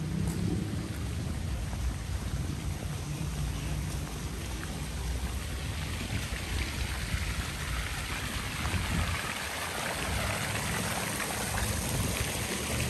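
Steady hiss of falling water, growing louder from about halfway through, over a low rumble.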